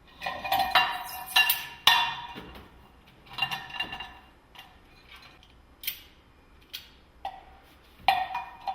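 Metal parts of a car's wheel-change kit clanking and clinking as they are handled, in three clusters of sharp strikes that each ring briefly, with a few lighter knocks between.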